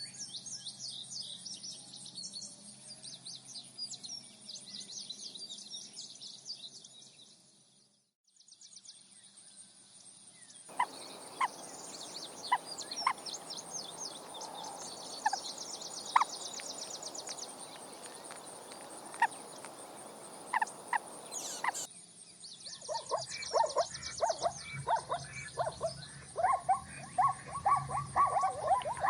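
Animal and bird calls in a few separate stretches: fast high-pitched chirping at first, a short break, then high chirping with scattered sharp clicks, and quick repeated calls near the end.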